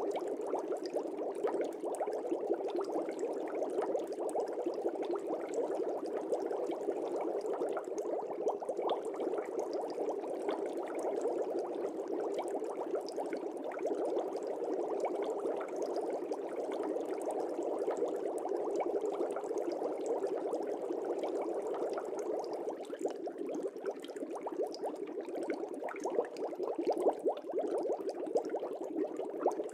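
Air bubbling steadily in an aquarium fish tank: a continuous, even burble of many small bubbles.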